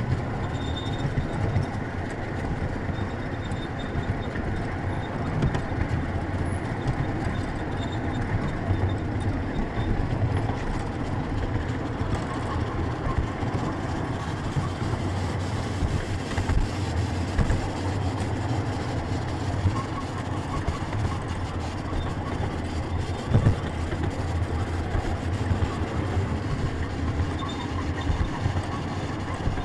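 Ride-on miniature railway carriage rolling along the track, heard from on board: a steady low rumble of wheels on the rails with scattered small clicks and one sharper knock about three-quarters of the way through.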